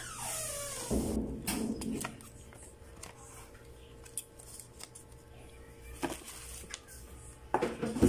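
Paper rustling and scattered light clicks as a folded multimeter user manual and the unboxed items are handled, with a louder rustle near the end. A tone glides down in pitch during the first second.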